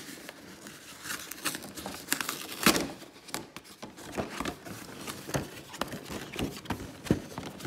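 A cardboard trading-card collector box being opened by hand: the seal torn, the lid and flaps lifted, with paper and plastic packaging rustling and crinkling. Scattered sharp clicks and taps of the card against the table and hands, the loudest about three seconds in.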